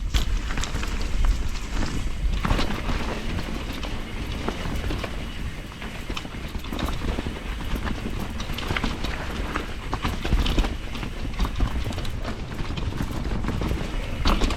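Enduro mountain bike descending a rough, wet forest trail: continuous tyre and wind rumble with frequent knocks and rattles as the bike hits rocks and roots.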